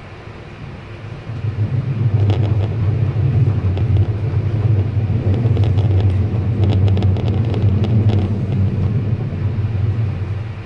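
Bergen Line train running on the track, a loud low drone that swells about a second in and eases off near the end, with scattered clicks and rattles in between.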